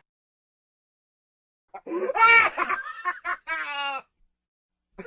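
A person's hysterical, crazy laugh. A burst of broken cackling starts a little under two seconds in and ends on a drawn-out, falling note.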